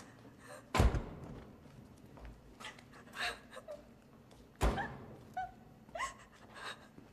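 Mini Cooper doors being shut, two heavy thunks about four seconds apart, the first the louder. Short quieter sounds fall between and after them, with a woman's crying breaths near the end.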